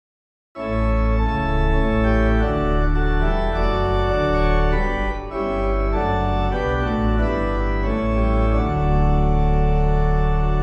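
Organ playing a hymn introduction in full, held chords over a deep sustained bass. It starts abruptly about half a second in.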